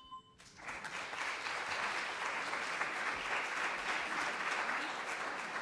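Audience applause breaking out about half a second in, right as a mallet-percussion piece ends, and going on steadily.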